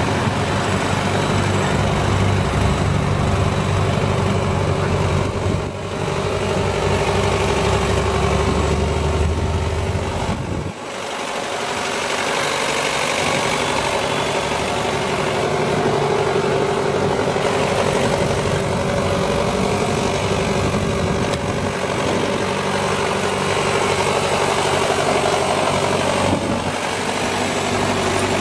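Case 1394 tractor's diesel engine running steadily at idle. A heavy low rumble underneath drops away abruptly about a third of the way through, while the engine's steady hum carries on.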